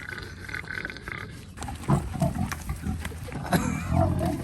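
A large farm animal grunting: a run of short, low grunts one after another, with a higher-pitched sound in the first second.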